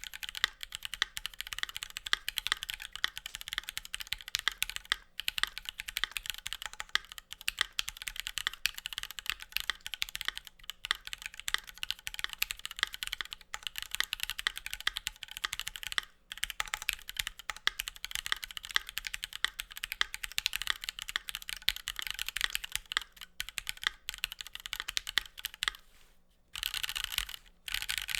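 Continuous fast typing on a Keychron Q2 mechanical keyboard with SP Star Meteor White linear switches, keys clacking in a rapid stream. Typing pauses briefly about 26 seconds in, then resumes.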